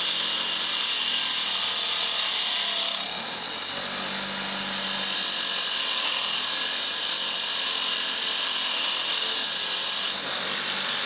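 A power tool abrading rust and corrosion off a steel nut, the motorcycle's front sprocket nut, down to bare metal: a steady, loud, abrasive hiss.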